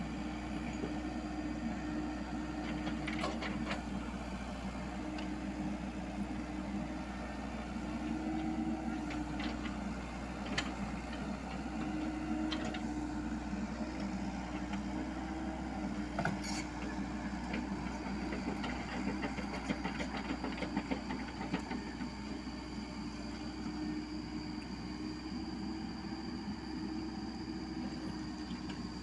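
Komatsu PC78US mini excavator's diesel engine running steadily while it digs, its pitch wavering slightly as the hydraulics work. Scattered short knocks and clanks from the bucket working through soil and stones, the sharpest about 16 seconds in.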